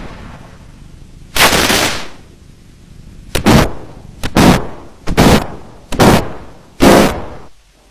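A stomach-growl sound effect run through heavy audio effects, heard as six sudden loud bursts like shots, each fading within about half a second. Some bursts open with a short sharp click.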